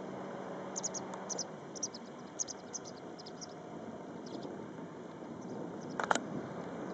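Short, high chirps in quick runs from a small animal, then one louder, sharper chirp about six seconds in, over a steady outdoor background hiss.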